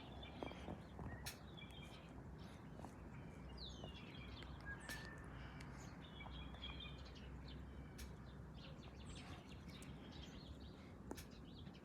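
Small birds chirping and twittering in short calls and quick gliding notes, over a faint steady low background rumble.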